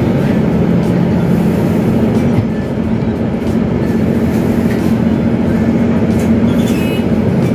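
City bus engine running with a steady low hum, heard from inside the bus. A brief high-pitched squeal comes near the end.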